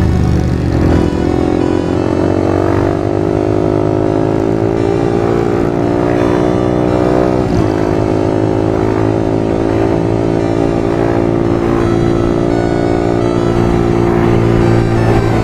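The 2003 Kawasaki ZX-6R 636's inline-four engine pulls steadily up through the revs at part throttle. About halfway there is a brief break and a small drop in pitch, as with a gear change. The pitch then climbs gently again and holds at a steady cruise, with road and wind noise underneath.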